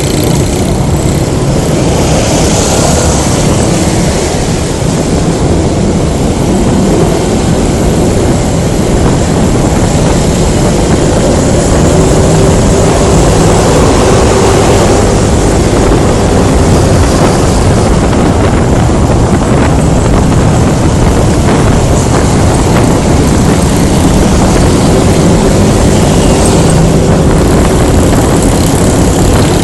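Loud, steady wind rush buffeting a phone microphone stuck to a motorcycle helmet while riding, over the running of a Honda Scoopy scooter and road traffic. A faint engine note rises and falls in a couple of places.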